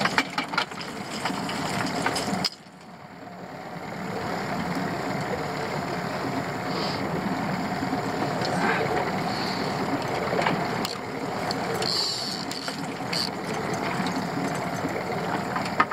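Outboard motor running steadily at low trolling speed, mixed with wind and water noise. The sound drops suddenly about two and a half seconds in, then builds back up.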